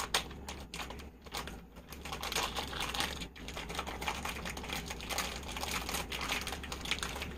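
A cross-body bag's strap being handled and adjusted to lengthen it: a steady run of small clicks, taps and rustles of strap and buckle.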